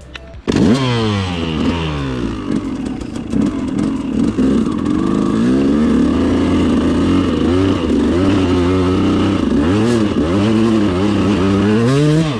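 KTM 200 EXC's two-stroke single-cylinder engine revving under load on a steep climb, starting abruptly about half a second in. The pitch rises and falls repeatedly with the bursts of throttle.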